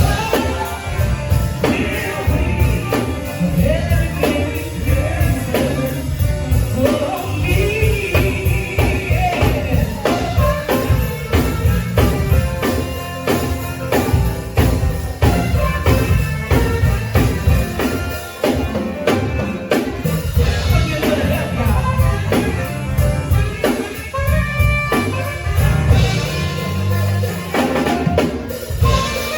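Live band music, with a drum kit keeping a steady beat under a melodic lead line.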